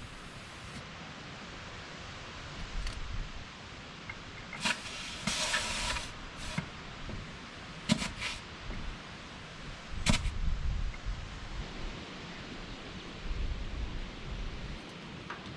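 Compressed air hissing as a tyre on a Heston 8100 swather is aired up. The air blows hard for about a second and a half near the middle, with a few sharp clicks and low knocks from the air chuck and hose.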